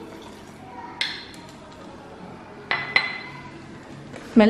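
A metal whisk clinking against the sides of a glass measuring jug while stirring a thin egg, sugar and lemon juice mixture: three sharp clinks with a brief ring, about a second in and twice close together near three seconds.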